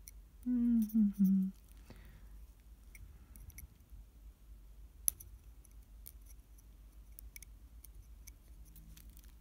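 Craft knife blade cutting and scraping at a 3D-printed resin doll head, trimming a leftover support nub from the eye opening: faint, scattered sharp ticks, with one louder click about five seconds in. A brief wordless voice sound about half a second in.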